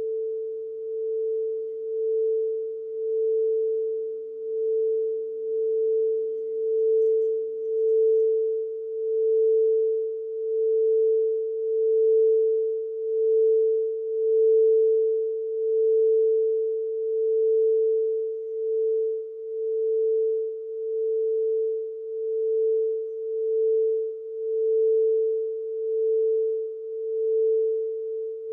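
Crystal singing bowl ringing one sustained pure tone, its loudness wavering in a slow pulse about once a second. A second, lower bowl tone sounds underneath and fades away about ten seconds in.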